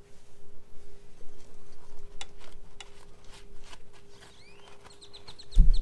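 A series of light clicks and taps while the reel mower's engine oil is being drained, with a few short high rising chirps, then a heavy thump near the end.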